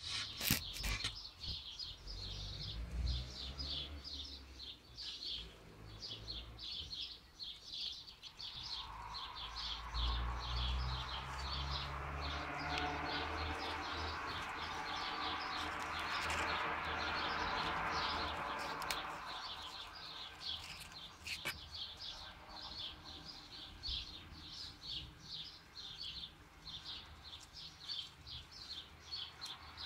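Steady high chirping that repeats about three times a second throughout. A low rumble comes twice, and a broad rushing noise swells and fades in the middle.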